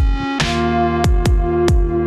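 Electronic background music with a heavy kick-drum beat under sustained synth notes.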